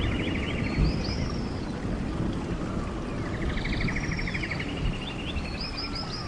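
Songbirds calling: a fast rattling trill twice, with short sliding chirps, the chirps coming in a quick run near the end, over a steady low rushing noise.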